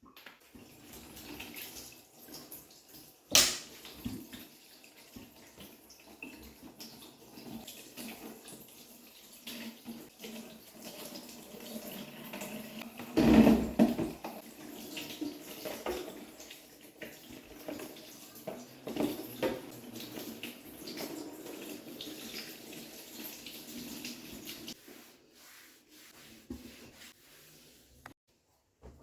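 Water running from a tap into a sink, with scattered knocks of things being handled in it: a sharp knock about three seconds in and a louder bump near the middle. The water stops a few seconds before the end.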